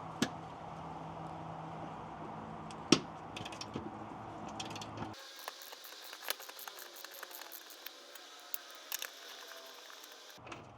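Hand ratchet with an 18 mm socket clicking in short, irregular runs while loosening the transmission mount's center nut, with one sharp knock about three seconds in.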